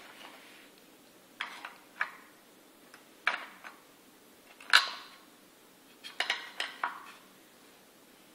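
Wooden animal shapes knocking and clattering against a wooden shape-sorter box as they are handled and pushed through its holes: a handful of short, sharp knocks, the loudest about five seconds in, then a quick run of several together later.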